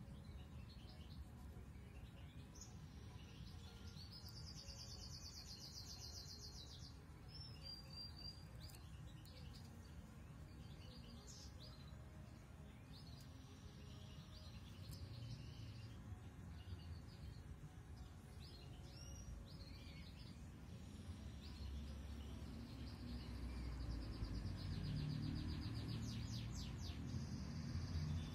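Small cage birds chirping faintly, with a rapid trill about four seconds in and another near the end. A low rumble rises under them near the end.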